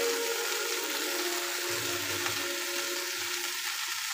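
Spinach leaves and green peas sizzling in hot oil in a frying pan: a steady hiss, the wet leaves just added.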